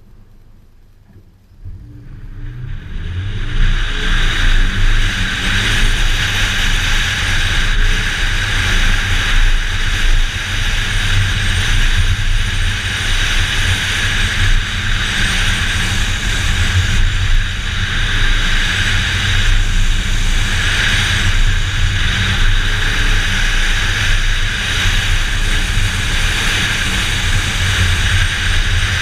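2013 Scion FR-S's flat-four engine, quiet at first, then launching about two seconds in and running hard under acceleration for the rest of the run. A heavy rush of wind and tyres on loose dirt rides over the engine, picked up by a camera on the hood.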